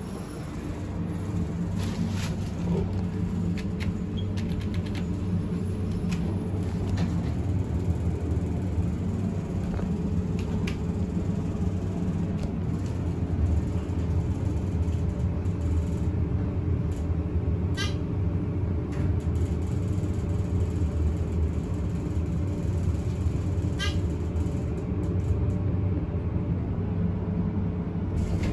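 Dover Oildraulic hydraulic elevator's pump motor running steadily as the car travels up, a low hum with a few faint clicks. It builds up about a second in. Two brief high chirps come about six seconds apart in the second half.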